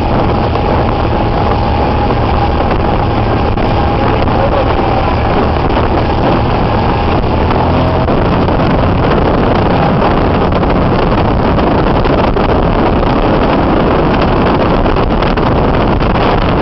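Jet ski engine running steadily under way, with wind on the microphone.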